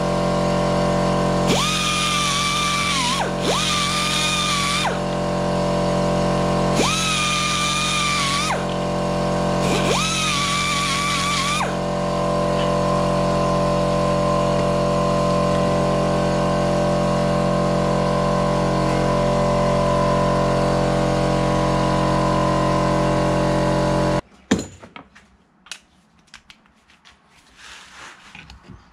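Background music: a sustained drone of steady tones with a wavering melody line that comes and goes. It cuts off abruptly about 24 seconds in, leaving quiet with a few faint clicks.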